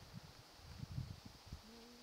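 Two tomcats in a territorial standoff: faint low growling, then about one and a half seconds in one cat starts a low, drawn-out moan that dips slightly in pitch.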